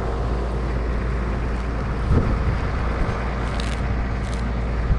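Farm tractor engine running steadily, heard from inside the cab. A short low sound comes about two seconds in, and a few faint clicks come later.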